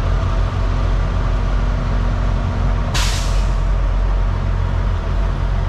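Semi-truck's diesel engine running at a low idle, heard from inside the cab while reversing. About three seconds in comes a sudden hiss of air from the air brakes, fading out within a second.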